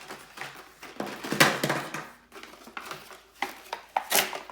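Plastic toy packaging being handled and pulled apart: rustling and scraping about a second in, then a few sharp plastic clicks and knocks near the end.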